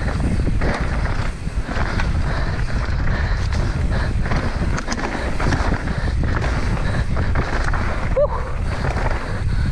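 Wind buffeting the microphone over the steady rumble of mountain-bike tyres rolling fast on a dry dirt trail, with frequent small knocks and rattles from the bike going over bumps.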